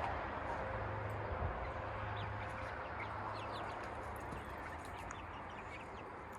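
Young chickens peeping with short, faint chirps scattered throughout, over a steady outdoor background hiss.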